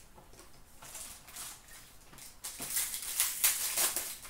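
Hockey card box and pack packaging handled and opened by hand: cardboard and wrapper rustling in irregular short strokes, louder from about halfway through.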